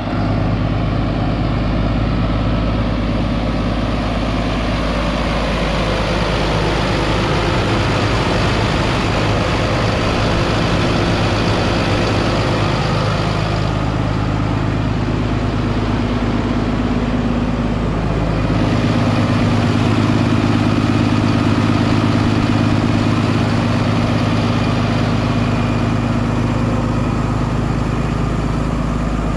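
2018 International 4300 box truck's 6.7-litre turbo diesel engine idling steadily with the hood tilted open.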